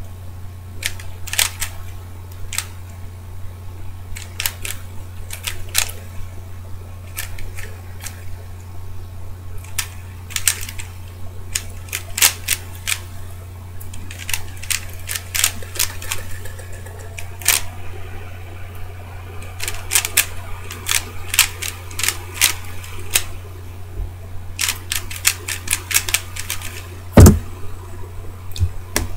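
DaYan ZhanChi 3x3 speed cube being turned fast: quick clusters of plastic clicks from the layer turns, broken by short pauses, with faint vocal noises from the solver partway through. Near the end a single loud thump, as the solve finishes. A steady low hum runs underneath.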